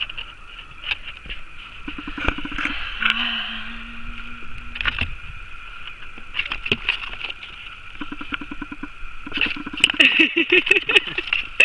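A cardboard box being handled with a mole inside: scattered knocks and scrapes of cardboard as hands reach in, with a few brief low murmurs from a person's voice.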